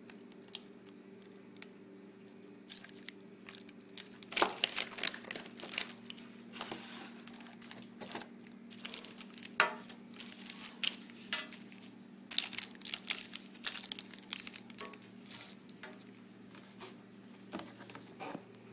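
Plastic packaging crinkling and crackling in irregular bursts as it is handled, densest in the middle, over a faint steady low hum.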